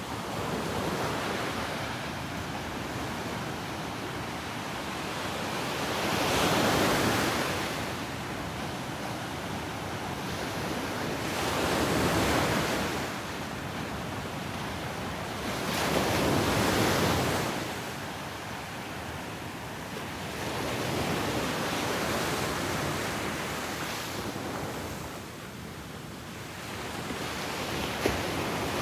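Ocean waves breaking on a beach: a constant hiss of surf that swells into a louder crash about every five seconds.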